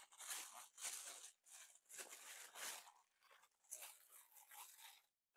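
Faint, irregular crinkling and rustling of soft plastic packaging wrap as a clear plastic toy stand is unwrapped by hand.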